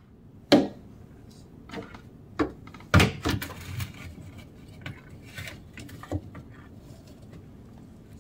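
A handful of sharp plastic knocks and scrapes as a plastic rat snap trap with a caught rat in it is nudged across a wooden cabinet floor with a green plastic tool. The loudest knock comes about three seconds in.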